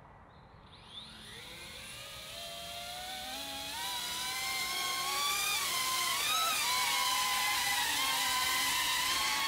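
A small caged drone's electric motors and propellers spin up from rest for take-off. The whine rises in pitch and loudness over about four seconds, then runs steadily, with several motor tones wavering against each other.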